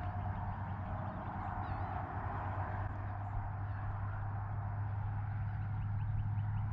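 Steady low hum under an even rush of noise, with a few faint bird chirps over it.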